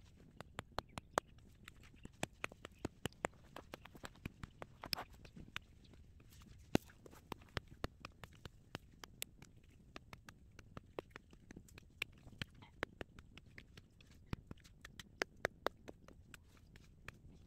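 Small three-tine hand fork-hoe striking hard, dry clay soil over and over: short sharp knocks, irregular, about three a second. The ground is very hard, so each blow chops at packed clods.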